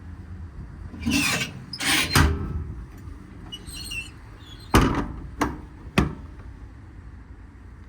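Compartment doors and latches of a truck service body being worked: two scraping, rushing noises, a faint squeak, then three sharp knocks about half a second apart as a door is handled and latched.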